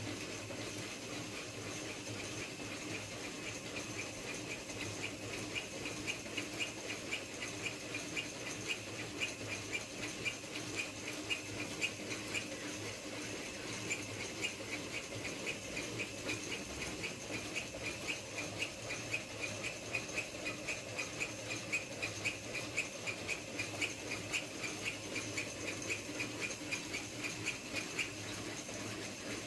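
Home-built CNC saw running, its blade cutting steel with a steady, rhythmic rasp of about two strokes a second over a constant motor hum.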